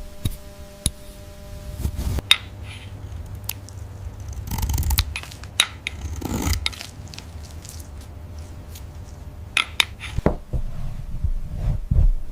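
Scattered clicks, knocks and short scrapes of hand work with tools and materials, over a low steady hum.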